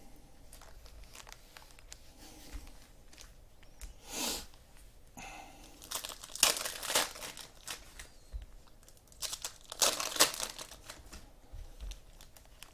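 Trading card packs being torn open and their wrappers crinkled, in three short bursts of tearing and crinkling, the loudest near the end, with faint card handling in between.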